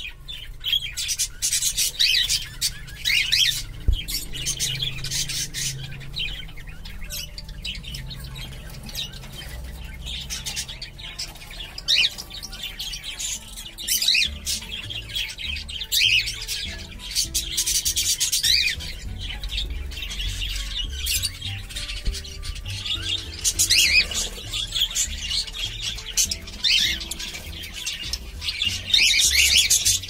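Cockatiels calling: many short, raspy squawks and chirps, coming in clusters throughout, over faint background music.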